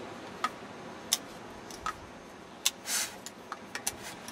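Hand pump working on a bicycle tyre's valve: sharp clicks, at first about one every 0.7 s and then quicker near the end, and a short hiss of air about three seconds in. The tyre is already hard.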